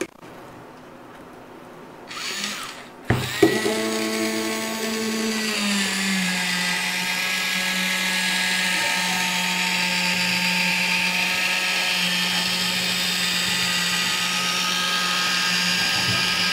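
Battery-powered handheld electric can opener starting with a click about three seconds in, then its small motor running steadily with a whine as it travels around the rim cutting the lid off a can. Its pitch drops slightly a couple of seconds after starting, as it settles under the cutting load, then holds steady. A short scrape of handling comes just before it starts.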